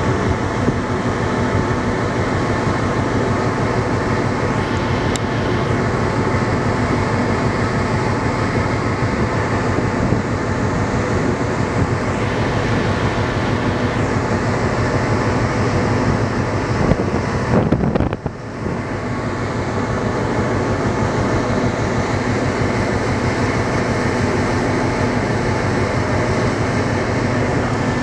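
Steady drone of a ferry's engines, with many steady hum tones under a rushing noise. A few knocks and a brief drop in level come about two-thirds of the way through.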